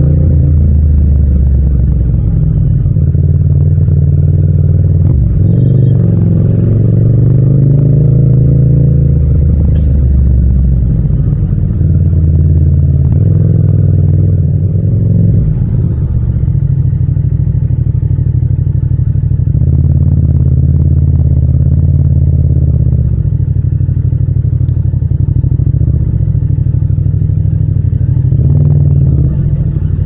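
Yamaha MT-07's 689 cc parallel-twin engine running at low road speed. Its pitch rises and falls with the throttle several times in the first half, then holds steadier for most of the second half.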